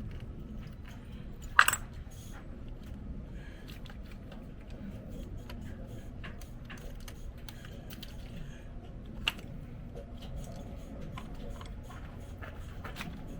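Metal hand tools and parts clinking and tapping during hands-on work at a truck's battery and starter solenoid. Two sharper clinks come about a second and a half in and about nine seconds in, over a low steady background rumble.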